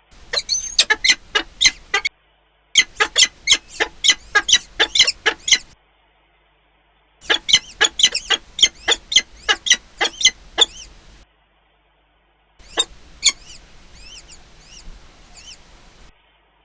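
A raptor calling at its nest: loud, sharp calls in rapid series, about four a second, in three long bouts with pauses between. Near the end come two loud calls and then fainter, higher chirps.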